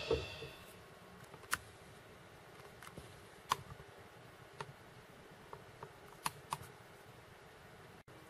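Quiet room tone broken by a handful of light, sharp clicks at irregular intervals.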